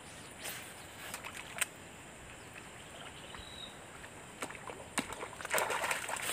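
Outdoor ambience by a small stream: a steady high insect drone, with scattered small clicks and a brief rush of noise near the end.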